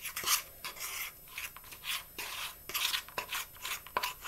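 A spoon stirring and scraping stiff cookie dough in a plastic Tupperware breakfast maker, in quick, irregular rasping strokes.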